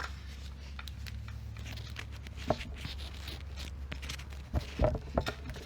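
A few short clicks and knocks, the loudest cluster about five seconds in, over a steady low hum.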